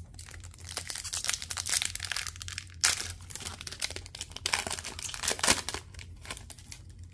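Foil hockey card pack wrapper crinkling and tearing open in the hands, a run of crackly rustles with the loudest rips about three seconds in and again about five and a half seconds in.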